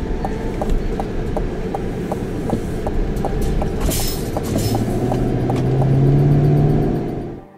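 A car driving, heard from inside the cabin: steady road and engine noise with a regular ticking about three times a second. Over the last few seconds the engine note rises as the car speeds up, then the sound cuts off suddenly.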